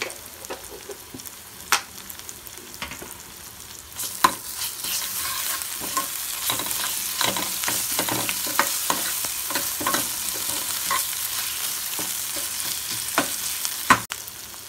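Onions, green chillies and ginger-garlic paste sizzling in hot oil in a metal kadai, stirred with a steel spoon that scrapes and clicks against the pan. The sizzling grows louder about four seconds in.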